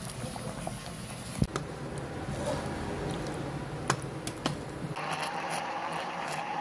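A few sharp clicks and knocks, then about five seconds in a blender starts and runs steadily, blending cooked rice with milk.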